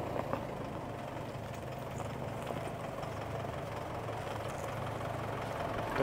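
An off-road vehicle's engine running steadily at low revs, an even low hum.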